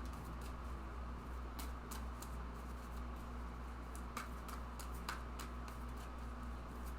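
Tarot cards being shuffled and handled: scattered light flicks and clicks of card stock, a few of them sharper, over a steady low hum.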